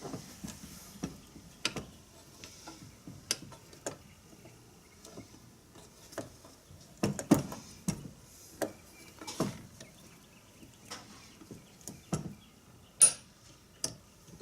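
Irregular clicks and light knocks of an Allen key and small metal parts on an animatronic head's actuator mechanism as a tight collar set screw is worked loose. The sharpest knocks come about seven seconds in and about thirteen seconds in.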